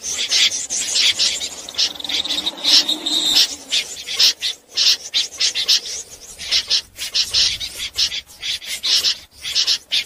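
Snipe calling: a fast run of short, harsh, rasping calls, several a second, with brief gaps.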